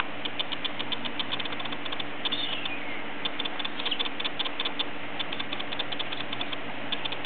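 Cockatiel grinding its beak as it is scratched: trains of fine, rapid clicks, several a second, with a brief falling squeak a little over two seconds in, over a steady low hum. Beak grinding is a sign of a relaxed, contented bird.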